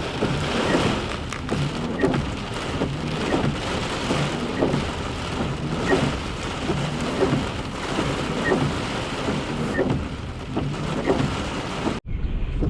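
Heavy thunderstorm rain pouring, with a pulsing that comes back about every second and a quarter; it cuts off abruptly near the end.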